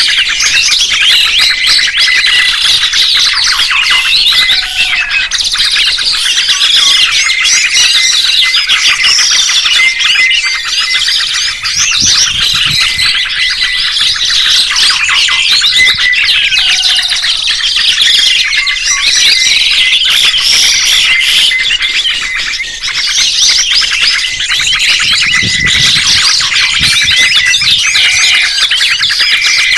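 Dense, continuous chirping and trilling of songbirds, many high notes overlapping without a break. This is recorded birdsong of the kind played to train caged songbirds.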